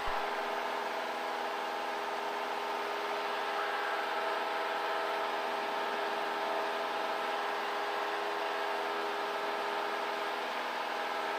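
Cessna 172 Skyhawk's four-cylinder Lycoming engine and propeller droning steadily at climb power, a constant hum of several even tones.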